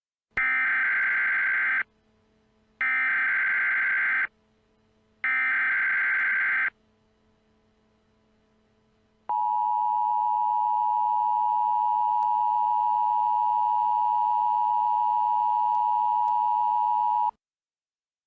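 Emergency Alert System tones: three short bursts of buzzing SAME header data, each about a second and a half long with a second's gap between, then the two-tone attention signal, a steady loud tone held for about eight seconds before cutting off. Together they announce a National Weather Service warning about to be read.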